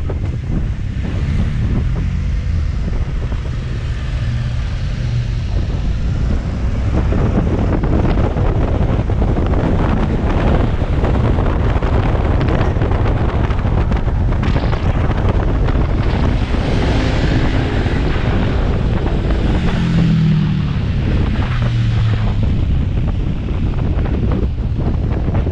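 Wind buffeting a helmet-mounted camera's microphone on a moving motorcycle, with the motorcycle's engine running underneath. The engine note rises and falls about twenty seconds in.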